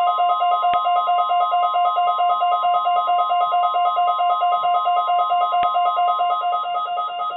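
NOAA Weather Radio warning alarm tone: a loud, steady single tone sounding through a weekly test. Over it runs a rapidly pulsing, multi-pitched alert beeping, and there are two faint clicks.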